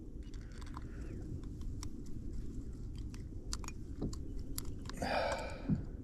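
Fishing pliers working a lure's treble hooks out of a threadfin salmon's mouth: scattered small metallic clicks and scrapes over a steady low wash of water, with a brief rasping sound about five seconds in.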